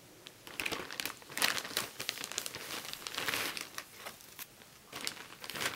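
Plastic bag crinkling in irregular bursts as it is handled.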